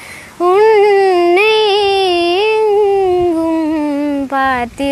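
A young girl singing unaccompanied, drawing out one long wavering note of a Tamil song after a short breath, then a few short sung notes near the end.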